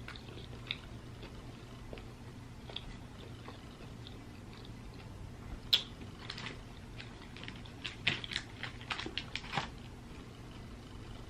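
Close-up eating sounds of fried chicken: wet chewing with crisp crackles of the fried batter. There is one sharp crack a little over halfway, and a quick run of crunches about eight to ten seconds in.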